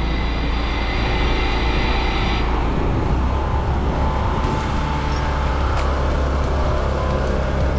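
Pressure washer's engine running steadily while sodium hypochlorite is being applied to a house. A higher hiss over the engine stops about two and a half seconds in, and the engine note shifts at the same moment.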